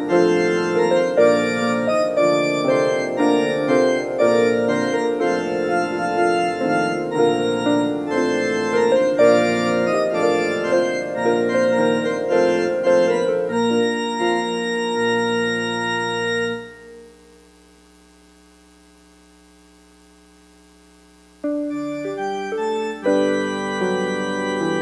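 Church organ playing the recessional, held chords over a low bass line. About two-thirds of the way in the piece ends on a chord that fades out, there is a gap of about four seconds, and another piece begins near the end.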